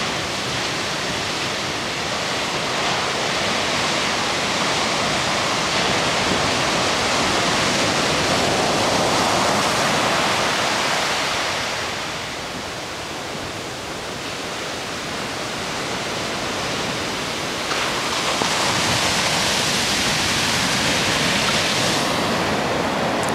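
Ocean surf breaking on the beach: a continuous rushing noise that swells and eases, louder twice with a lull between.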